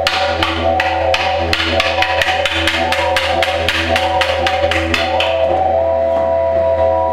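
Music with a fast run of sharp wood-block-like clicks, about five a second, over held tones and a low drone. The clicks stop about five seconds in, leaving only the sustained tones.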